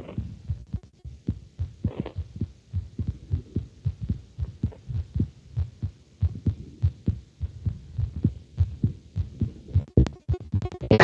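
A human heart beating, heard through a stethoscope on the chest: a steady run of low lub-dub beats. A quick cluster of sharp clicks comes near the end.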